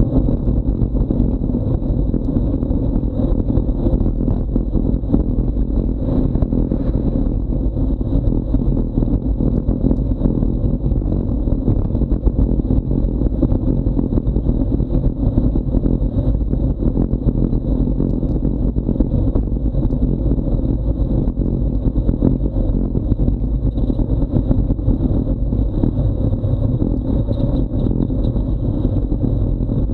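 Wind buffeting an action camera's microphone on a fast bicycle descent at about 35 km/h: a steady, low rushing rumble.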